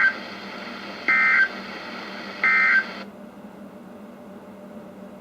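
NOAA Weather Radio SAME end-of-message data bursts from a weather radio's speaker: short, harsh digital bursts, one just ending and two more about 1.3 seconds apart, marking the end of the alert broadcast. About three seconds in, the broadcast hiss cuts off as the transmission ends.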